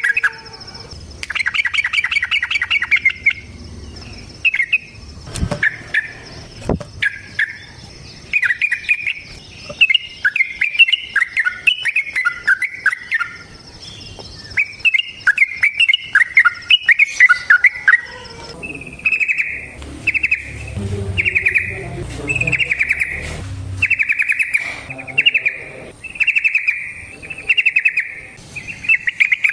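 Yellow-vented bulbul (trucukan) singing a long, rapid bubbly chatter, which settles in the second half into short phrases about one a second.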